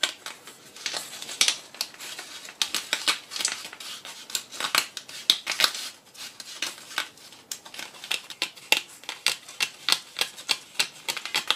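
Stiff card reel strips being fed in under the metal rims of a vintage slot machine's reels: an irregular run of sharp clicks, scrapes and rustles of card against metal.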